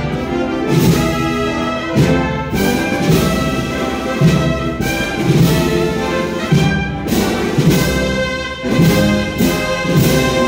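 Wind band playing a processional march: brass holding full sustained chords over a steady, regular drum beat.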